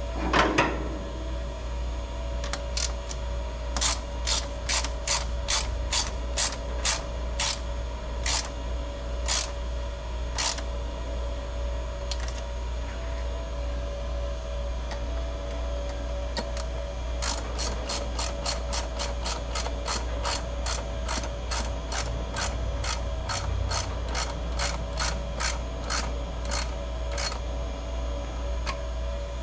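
Ratchet clicking in runs of quick strokes, about two a second at first and faster later on, over a steady low hum.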